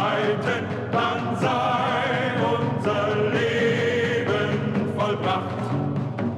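German military march song: a male choir singing over a military band accompaniment.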